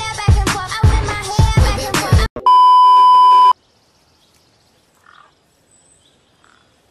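Pop music with a heavy beat that cuts off abruptly about two seconds in, followed by a loud, steady electronic beep lasting about a second, then near silence.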